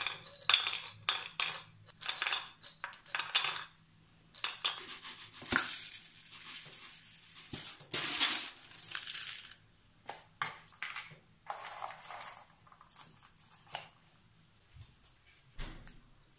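Dry snacks and small plastic food containers clattering: cashew nuts poured from a glass jar rattle into a plastic container, then the containers are filled, lidded and stacked in a series of short rattling bursts and clicks, the longest about eight seconds in.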